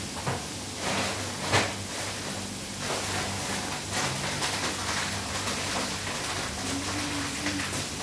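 Potato slices deep-frying in a pan of hot oil: a steady sizzle with a few sharp pops, the loudest about a second and a half in.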